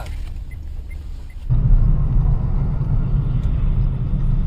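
Low, steady rumble of a moving car's road and engine noise as picked up by a dashcam; it jumps abruptly louder about a second and a half in.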